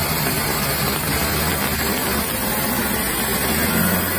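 Large diesel mining dump truck driving past under load: a steady low engine drone under a constant rushing hiss, swelling slightly near the end.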